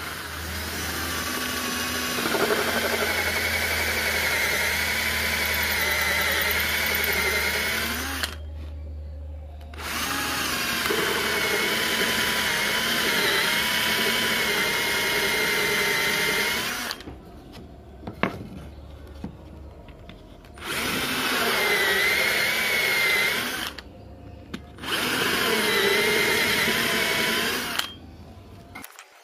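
Electric drill with a hole saw cutting circles into a wooden board, running in four long bursts of several seconds each with short pauses between and one brief blip. The motor's whine wavers in pitch as the saw bites into the wood.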